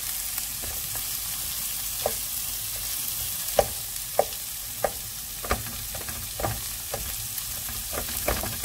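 Diced zucchini and garlic sizzling in oil in a frying pan, a steady hiss. Over it, a wooden spoon stirs the vegetables with irregular short clicks and knocks against the pan, starting about two seconds in.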